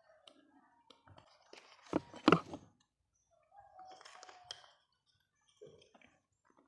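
Disassembled electric fan motor parts being handled and put down: two sharp knocks about two seconds in, then softer rustling and clicks as a bearing bracket is picked up.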